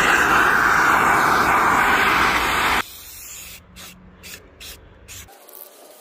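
Gas torch flame burning with a steady hiss as it scorches the edges of carved wooden shingles, shut off abruptly about three seconds in; a few faint clicks follow.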